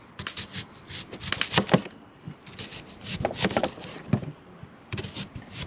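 Kitchen knife slicing a whole white onion into rounds on a plastic chopping board: short runs of crisp crunching cuts, each ending in a tap of the blade on the board, coming about once a second.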